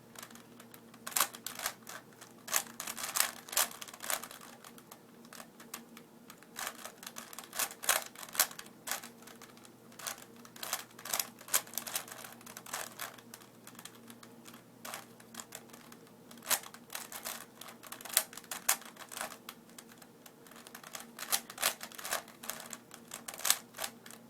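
Plastic 4x4 Rubik's cube being turned by hand, its layers clicking in quick irregular runs of turns with short pauses between. This is the edge-pairing stage of the solve.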